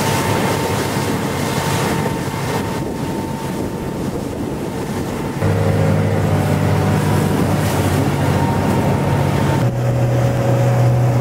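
Outboard motor of a rigid inflatable boat running at speed, a steady drone mixed with wind on the microphone and rushing water. The engine note changes abruptly about halfway through and again near the end.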